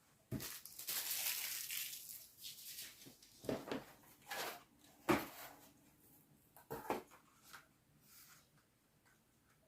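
Quiet handling noises from hand craft work on a dollhouse window: a scratchy rustle for about the first three seconds, then several light knocks and taps spaced a second or so apart.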